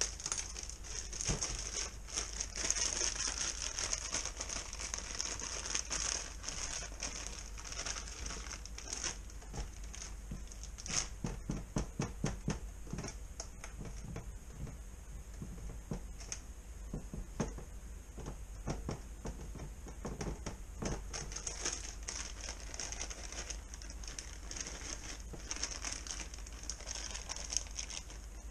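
A plastic bag of brown sugar crinkling and rustling as it is handled, with irregular small clicks.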